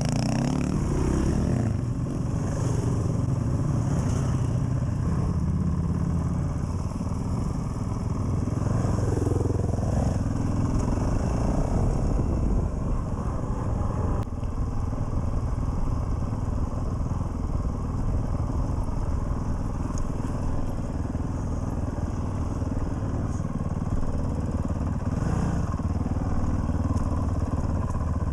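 Dual-sport motorcycle engine running as the bike is ridden, with small rises and falls in engine pitch.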